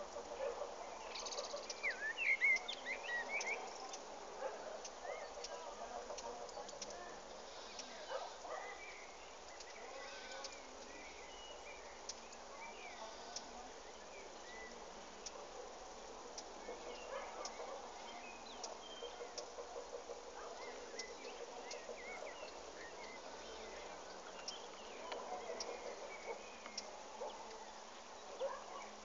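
Small birds chirping with short, scattered calls, a quick run of chirps about two seconds in and more throughout.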